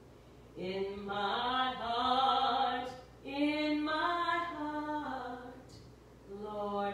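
A woman singing a slow sacred song solo and unaccompanied, in long held notes: two full phrases, with a third beginning near the end.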